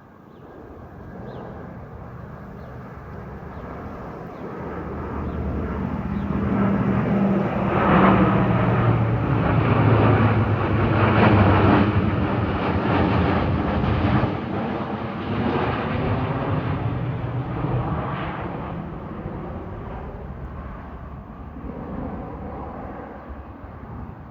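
Boeing P-8A Poseidon's twin CFM56 turbofan jet engines as the aircraft passes by low. The noise swells to a loud peak about eight to twelve seconds in, then slowly fades.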